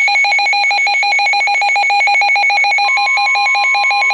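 Weather radio receivers sounding their alert alarm: a loud, rapid, even beeping with a warbling higher tone over it, and a steady tone joining about three seconds in. It signals an incoming warning.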